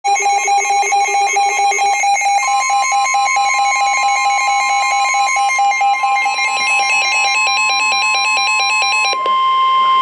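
Several weather alert radios (Midland and Reecom units) sounding their alarms at once, rapid repeating beeps at different pitches overlapping. From about two seconds in, the steady 1050 Hz NOAA Weather Radio warning alarm tone joins, the signal of a warning-level alert, here a severe thunderstorm warning; about nine seconds in the beeping stops and the steady tone carries on alone.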